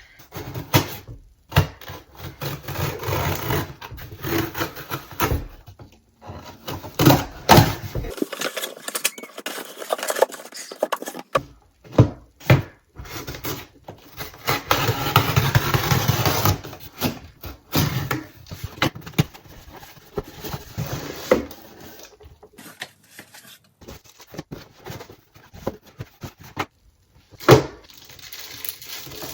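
PC components and their packaging being handled: scraping, rustling and rattling with sharp clicks and knocks, in short cut-together bits.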